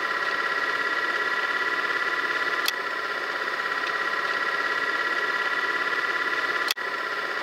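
A steady electronic buzzing tone, several pitches held together with a rapid even flutter, broken by a click a little under three seconds in and a short dropout near the end.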